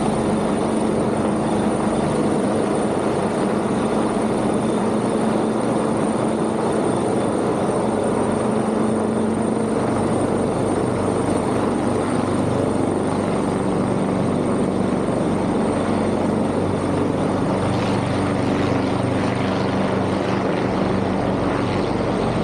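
Fire department helicopter flying past, its rotor and engine noise running steadily.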